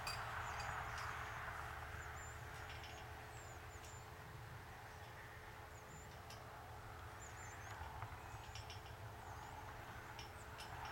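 Faint, scattered high chirps of small birds, several short calls a few seconds apart, over a quiet background with a low steady rumble.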